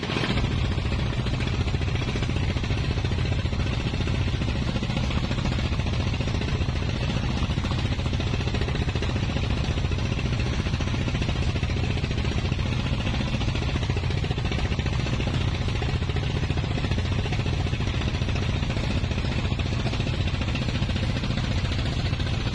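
Motor boat's engine running steadily under way, a low even drone with a rapid pulse, over a hiss of wind and water rushing past the hull.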